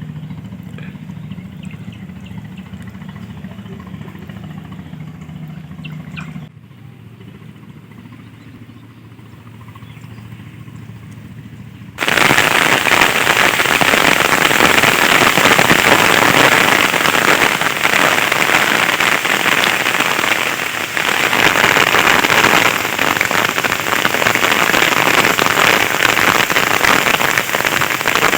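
Heavy rain pouring down, cutting in suddenly about twelve seconds in and then loud and steady. Before it, a quieter stretch with a low steady hum that drops away about six seconds in.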